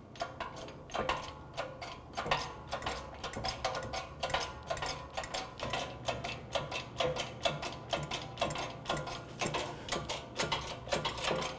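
Hydraulic shop press working as it presses a wheel hub into a new front wheel bearing in a steering knuckle: a steady run of sharp mechanical clicks, about three a second and unevenly spaced, over a low steady hum. The hub is still travelling in and has not yet bottomed out.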